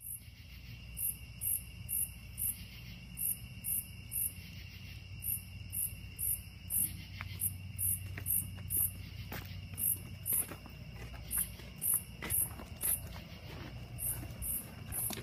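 Night insects chirping: one high, short chirp repeating about twice a second over a steady trill from other insects. From about seven seconds in, faint clicks and taps, likely footsteps, join it.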